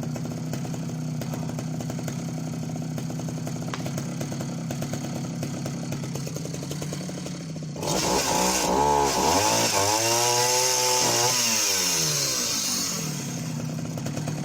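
Husqvarna L65 65cc two-stroke chainsaw idling steadily. About eight seconds in it is opened up to full throttle and cuts into the log, its pitch sagging and recovering under load for about five seconds, then it drops back to idle.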